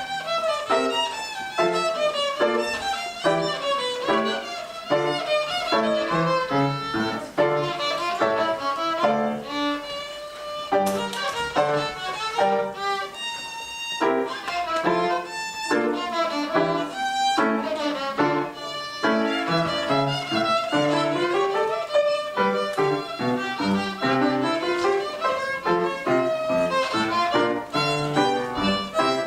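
Violin playing quick running passages from the first movement of a concerto for two violins, with lower accompanying notes beneath.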